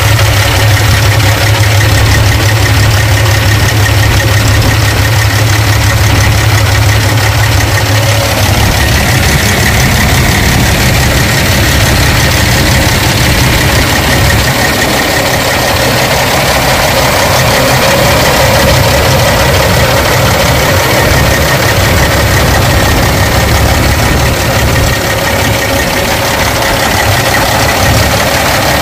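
Heavy-truck diesel engine idling steadily, loud and close.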